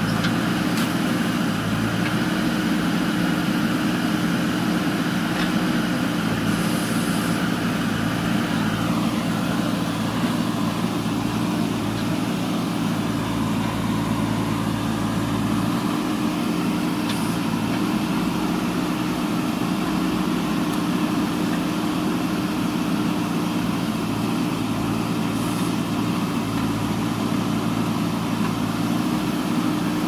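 JCB 3DX backhoe loader's diesel engine running steadily as the backhoe arm digs soil and rubble, with a higher whine over the engine note that drops in pitch about nine seconds in.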